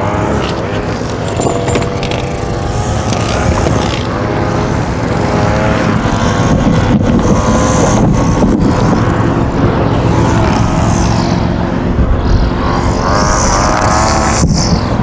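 Small gasoline engines of lawn mowers and string trimmers running, a steady low rumble with an engine whine that rises and falls in pitch as the throttle changes.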